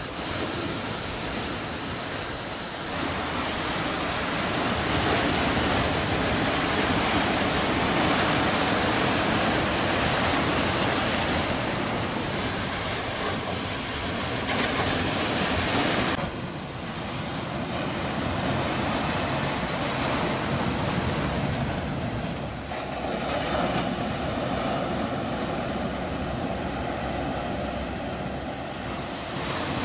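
Sea surf breaking and washing over shore rocks: a steady rushing noise that swells and eases, dropping suddenly about halfway through, then building again.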